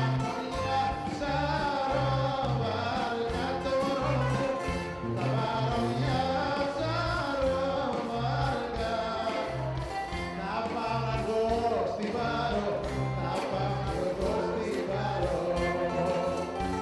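Live Greek band playing an up-tempo song: bouzouki, guitar and keyboard melody over drums and a regularly repeating bass line.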